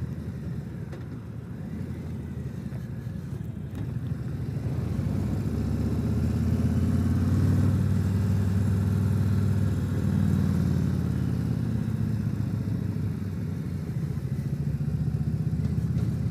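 Harley-Davidson Tri-Glide trike's V-twin engine running under way, heard from the rider's seat, with a low steady exhaust note. It swells about four seconds in as the trike pulls harder, then holds fairly level.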